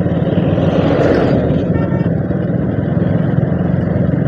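Motorcycle engine running steadily at road speed, heard from the moving bike, with road and wind noise. An oncoming bus passes close, swelling briefly about a second in.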